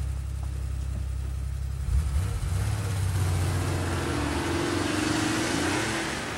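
Porsche 911's air-cooled flat-six engine idling, then, after a thump about two seconds in, pulling away with the engine note rising and tyre noise building, fading near the end.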